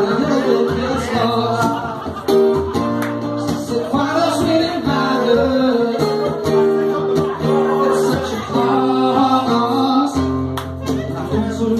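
Live acoustic guitar played through a PA speaker, with a man singing.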